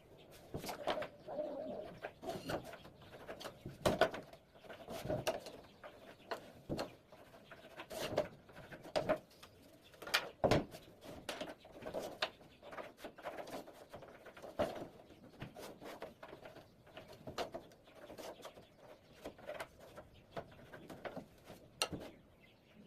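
Irregular knocks and taps of work on wood as battens are fitted to a door, the loudest about four and ten and a half seconds in.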